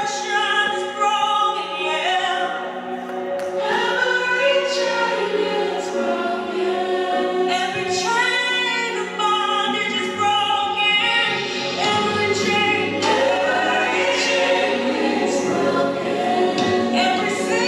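Gospel choir music, with voices singing long, held lines. A low bass part comes in about ten seconds in.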